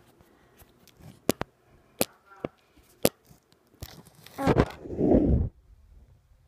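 Handling noise from a handheld phone with fingers over its lens and microphone: a few sharp clicks, then a louder rubbing and scraping about five seconds in.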